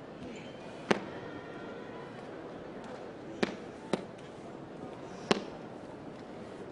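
Four sharp hand slaps, about a second, three and a half, four and five seconds in, over the steady murmur of an arena crowd.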